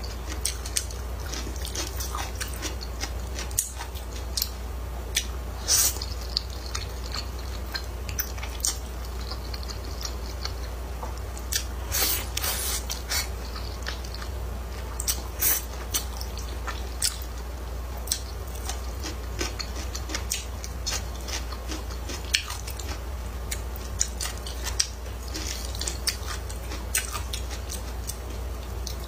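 Close-up eating sounds of a person chewing and slurping thick stir-fried rice noodles: wet mouth smacks and sharp clicks at an irregular pace.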